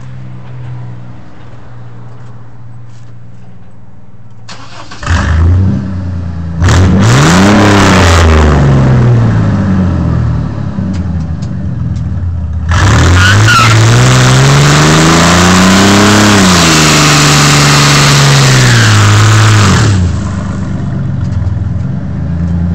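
Chevrolet S10 pickup idling, then revving hard as its rear tires spin on concrete in a burnout. A short spin comes about five seconds in, then a long one from about thirteen to twenty seconds: engine pitch climbs and falls under loud tire squeal and hiss. The engine then drops back to idle.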